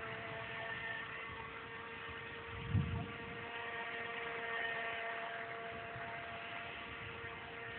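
Small brushed electric motor of an RC speed boat running with a steady whine. A single low thump comes about three seconds in.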